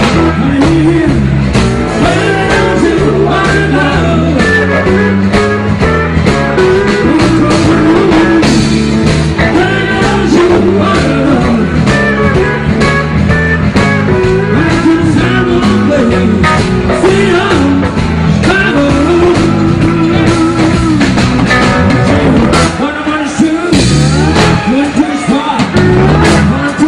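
Live blues band playing: a man singing into a microphone over electric bass, guitar and drums. The bass drops out briefly near the end.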